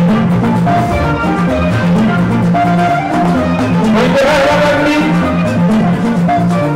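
Live band music with drums and a steady, repeating bass line.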